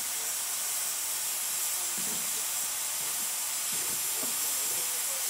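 Steady high-pitched hiss of escaping steam, even throughout, with a few faint low rumbles about two and four seconds in.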